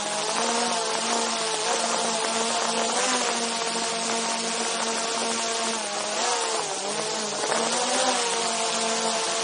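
DJI Mavic 2 Zoom quadcopter's motors and propellers buzzing right by the microphone over a steady hiss of rushing air. The pitch dips and then rises again about six to eight seconds in as the motors change speed.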